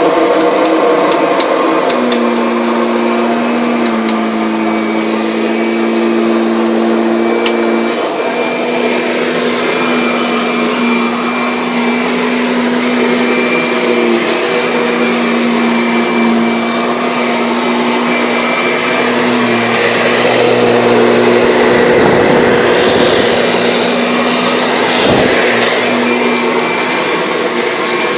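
Kirby Sentria upright vacuum cleaner running, a loud steady motor hum and whine. Its pitch shifts slightly a few seconds in, with a few sharp clicks near the start.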